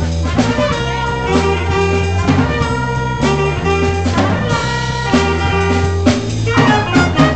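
A small jazz ensemble playing live: saxophones and trumpets over a repeating low bass line and drum kit.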